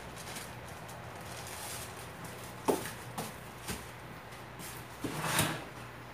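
Three light knocks about half a second apart, then a kitchen drawer opened and its contents rattling about five seconds in, the loudest sound here, as kitchen scissors are fetched.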